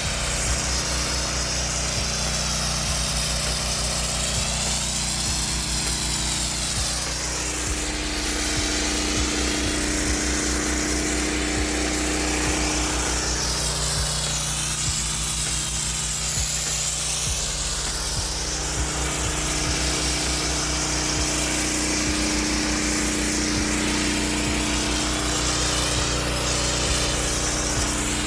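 Pressure washer's Honda GX390 gas engine running steadily, with the hiss of high-pressure water spraying onto paver stones that rises and falls as the wand moves.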